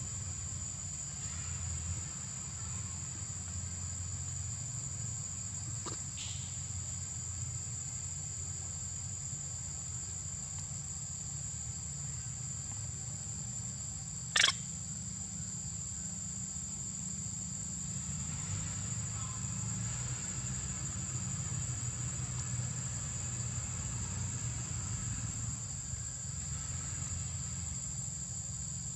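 Insects in steady high-pitched chorus over a low rumble, with a single sharp click about halfway through.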